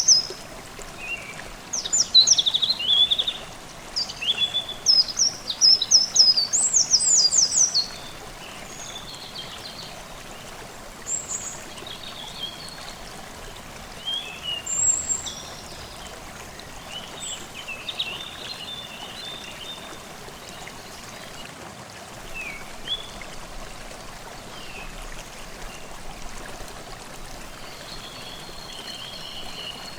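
Forest stream babbling steadily under songbirds. A loud, rapid run of high bird song phrases fills the first eight seconds or so, then fainter, scattered calls continue over the water.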